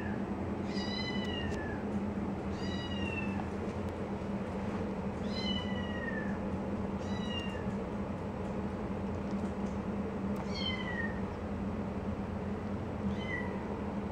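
A three-week-old tortoiseshell kitten mewing: six short, high-pitched calls a couple of seconds apart, each falling in pitch. It is a hungry kitten crying as it tries to suckle.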